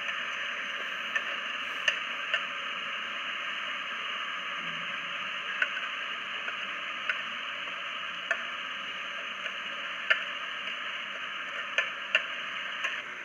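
Potato pieces frying in hot oil in a pressure cooker: a steady sizzle with scattered sharp pops and ticks.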